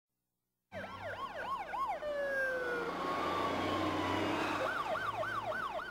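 Emergency vehicle siren in a fast yelp, about three rises and falls a second, starting about a second in. A steady tone slowly falling in pitch takes over for a couple of seconds over a low engine hum, then the yelp returns near the end.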